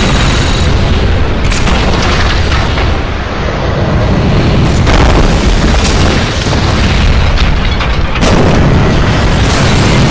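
Loud cinematic explosions and deep booms over background music, with fresh blasts hitting about one and a half, five and eight seconds in.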